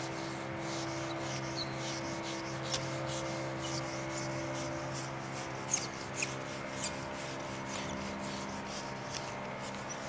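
Whiteboard being wiped clean by hand with an eraser: soft, repeated rubbing strokes, with a few light knocks about six seconds in.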